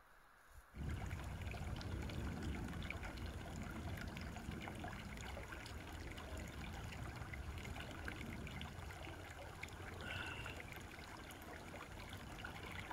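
A small rocky forest brook trickling and splashing close by, starting suddenly about a second in and running steadily.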